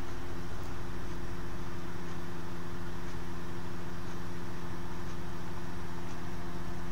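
A steady mechanical hum with a low rumble, unchanging throughout.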